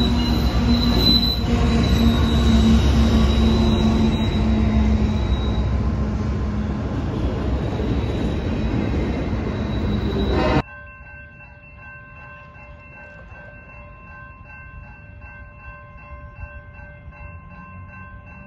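CSX freight train passing close by: the diesel locomotives' engines drone, then the autorack cars roll past with a high wheel squeal that fades out. About ten seconds in the sound cuts off sharply to a quieter, steady ringing of several tones from a railroad grade-crossing bell.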